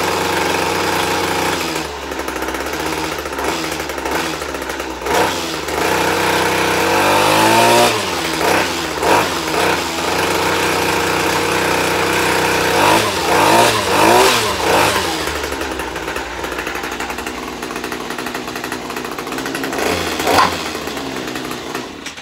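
Ryobi petrol line trimmer engine idling after a cold start with the choke off. It is revved up and back down with the trigger several times, spinning the edger attachment's blade, and the engine stops near the end.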